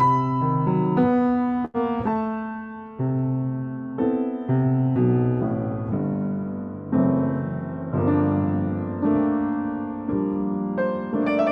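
Piano playing slow chords, struck about once a second and left to ring and fade, with a momentary dropout about two seconds in.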